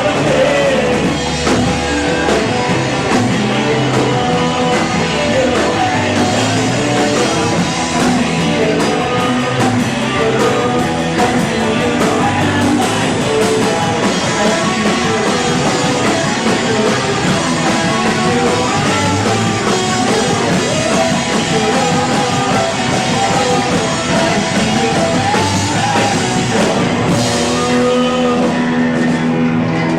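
Rock band playing live: electric guitars and drum kit, with singing, loud and continuous.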